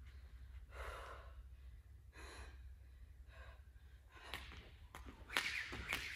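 Heavy breathing after a hard effort, long breaths about one a second and a half. Near the end a speed jump rope starts slapping the floor in a fast, even rhythm for double-unders, louder than the breathing.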